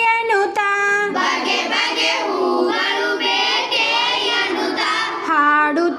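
Children singing a Kannada action song together: one clear voice carries the melody for about the first second, many voices join in a fuller group sound, and a single clear voice leads again near the end, in the call-and-response way the lines are repeated.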